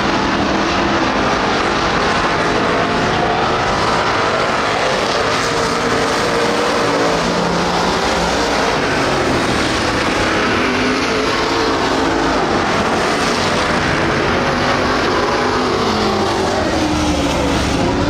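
Street stock race car engines running hard on a dirt oval, their pitch rising and falling as the cars go around the track.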